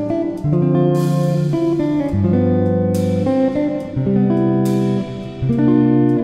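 Background instrumental music led by a plucked guitar, with new notes and chords struck about once a second.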